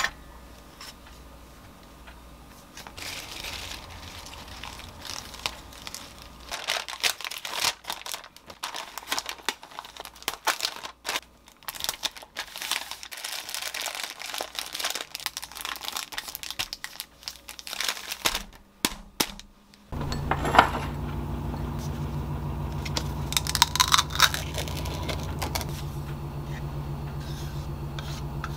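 Parchment paper crinkling and rustling as a sandwich is wrapped tightly in it by hand. About twenty seconds in this gives way to a steady low hum with a few light clicks.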